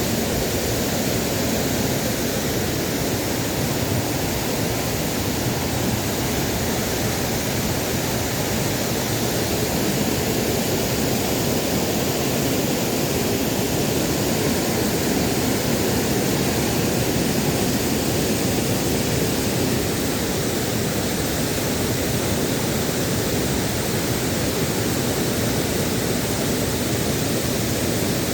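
Waterfall, a steady loud rush of falling water.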